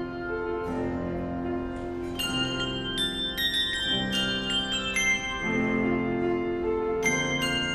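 Instrumental music: sustained chords with bright, bell-like struck notes ringing over them.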